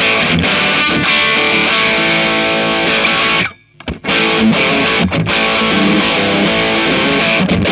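Electric guitar played with heavy distortion through a Marshall JCM2000 DSL100 valve amp head on its ultra gain channel, being play-tested after a main circuit board replacement. The playing stops briefly about three and a half seconds in, then carries on.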